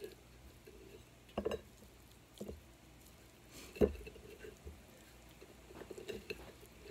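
Bare hands rubbing seasoning into raw pork spareribs on a plate: soft, wet squishing and rubbing of the meat. Two short knocks break in, the louder one about four seconds in.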